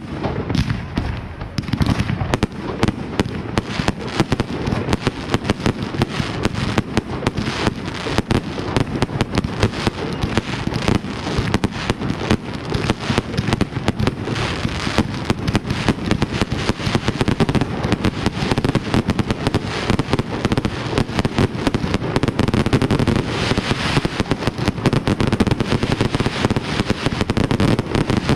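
New Year's Eve fireworks: a dense, continuous barrage of bangs and crackling, many reports a second with no let-up.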